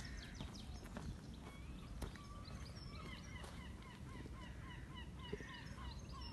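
Birds calling: scattered short high chirps, and from about two and a half seconds in, a short call repeated about three times a second.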